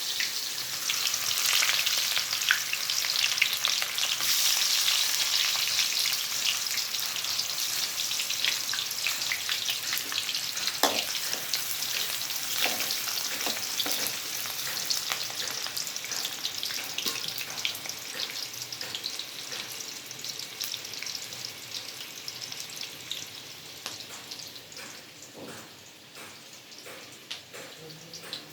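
Chopped onion sizzling in hot oil in a pan, with a spoon stirring and tapping against it. The sizzle is loudest at first and gradually dies down.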